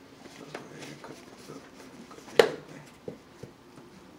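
Eating and food-handling noises at a table: scattered light clicks and taps of utensils and foil takeout trays, with one sharp knock a little over two seconds in.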